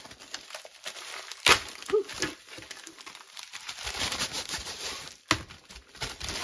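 Clear plastic packaging bag crinkling and rustling as it is handled and pulled open, with two sharper crackles, one about a second and a half in and one near the end.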